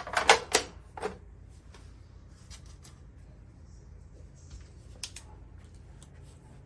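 A few faint, scattered clicks and taps of the chiller's circuit-board cover being handled and fitted back on, over a low steady hum.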